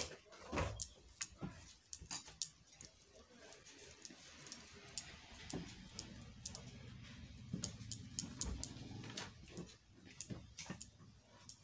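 Fingers mashing and mixing boiled potato with salt and chilli on a plate: soft, irregular clicks, squelches and taps of hand on food and plate.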